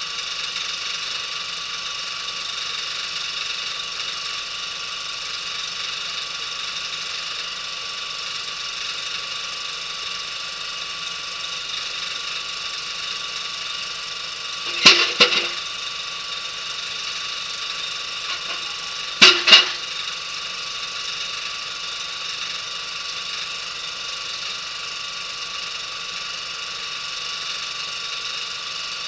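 An engine running steadily at idle, with two sharp double knocks about halfway through and again some four seconds later.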